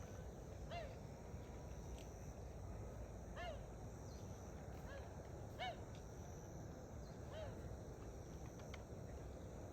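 A bird calling repeatedly: short rising-and-falling calls, one every second or two, over a steady low background rumble.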